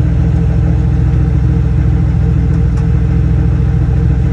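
Ford F150 pickup's engine idling steadily, a constant low hum.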